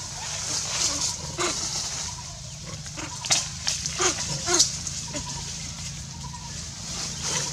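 A run of short, sharp animal calls at irregular intervals, most of them about three to four and a half seconds in, over a steady high hiss.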